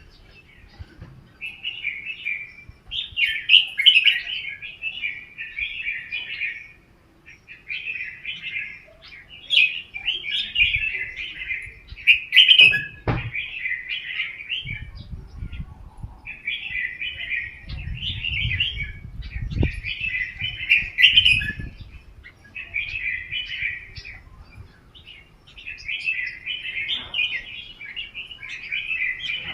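Red-whiskered bulbul singing, repeating short bright phrases every second or two with brief pauses between them.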